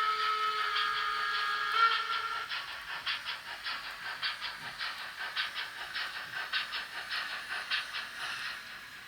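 N-gauge model steam locomotive's sound decoder through its small onboard speaker. A whistle is held and cuts off about two seconds in. Then comes steady steam chuffing, about four beats a second, slowly growing fainter.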